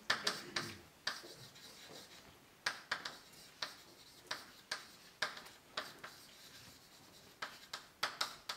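Chalk writing on a blackboard: sharp taps and short scrapes as letters are written, in several quick runs with brief pauses between them.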